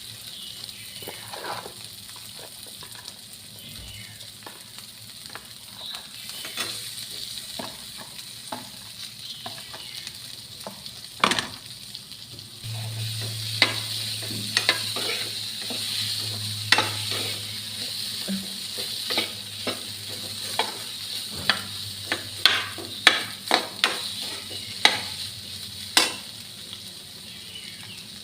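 Spiced potato filling frying in oil in a pan, sizzling steadily, with a spoon knocking and scraping against the pan as it is stirred. The knocks come more often in the second half.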